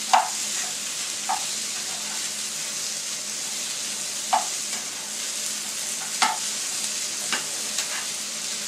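Chopped green capsicum, tomato and onion sizzling steadily in a hot non-stick frying pan while being stirred with a slotted spoon. The spoon knocks against the pan about five times.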